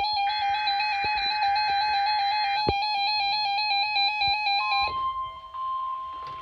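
Rapidly pulsing electronic alert tones in an even stepping pattern. About five seconds in they give way to a steady single-pitched tone, the NOAA Weather Radio warning alarm tone that switches on alert receivers.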